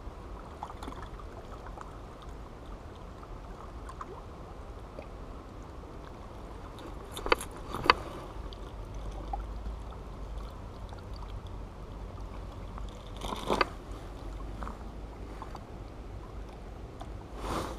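Steady low wind rumble on the microphone, broken by a few sharp clicks and knocks of fishing tackle being handled: a spinning rod and reel and a plastic tackle box. Two clicks come close together a little before halfway, and more follow later.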